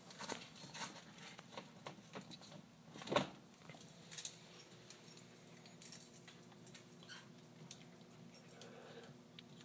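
Kittens playing on a tile floor: scattered light taps and scrapes of paws and a toy, with one louder thump about three seconds in.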